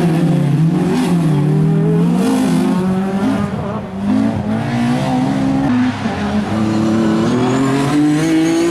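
Honda Civic hatchback rally car's engine revving hard as it accelerates out of a corner. The pitch climbs and drops back several times as it changes gear.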